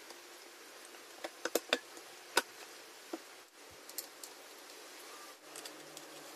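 Scattered sharp metal clicks and taps as screws and a brush cutter's painted clutch housing are handled and fitted, the loudest about two and a half seconds in. A faint low hum comes in near the end.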